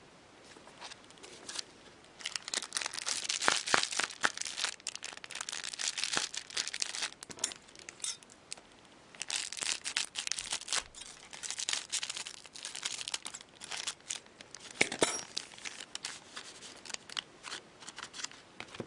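Foil trading-card packs crinkling and being torn open, with the cards shuffled in hand, in irregular bursts with a short lull about eight seconds in.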